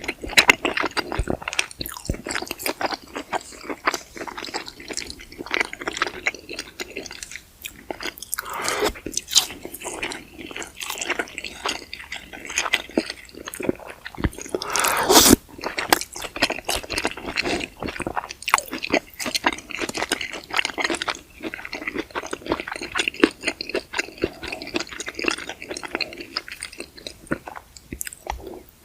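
Close-miked eating: biting and chewing sausages with polenta, wet mouth noises and small crunches in an irregular stream, with one louder sharp sound about halfway.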